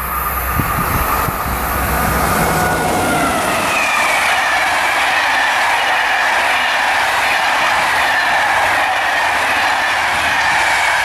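Train passing on the line. The rolling noise of wheels on rail grows louder about two seconds in and then holds steady, with a faint high whine that slowly falls in pitch.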